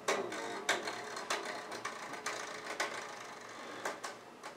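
Slackened strings of a semi-hollow electric guitar clicking and rattling against the frets as the tuning keys are turned down and the strings are pressed onto the neck: a series of irregular clicks, with a faint string tone dying away in the first half-second. The strings are being loosened until they no longer make a tone.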